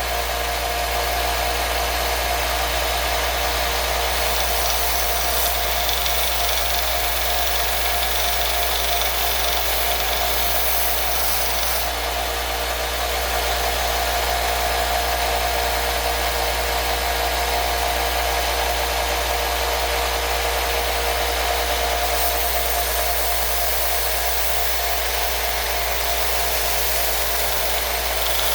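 A power tool running steadily with a constant motor hum and whine, without a break.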